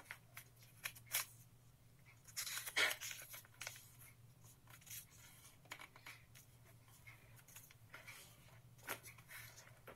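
Sheet of colour paper rustling and crinkling in short, scattered bursts as it is folded and creased flat by hand, the loudest about three seconds in. A faint steady low hum runs underneath.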